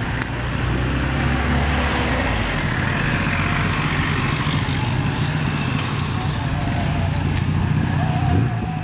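Slow road traffic: a vehicle engine running steadily under general roadside noise, with an engine revving up near the end.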